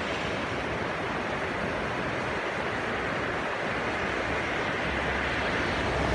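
River water rushing steadily, a constant even roar. A low rumble comes in about five seconds in.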